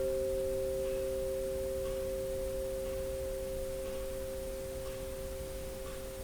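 Meditation background music: two steady pure tones held together, the higher one having come in just before, both slowly fading.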